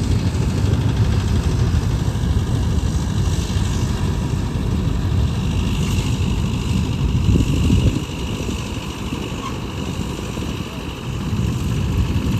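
Balkar 654 combine harvester's diesel engine running steadily with a heavy low rumble and a faint high whine. It drops a little in loudness about eight seconds in.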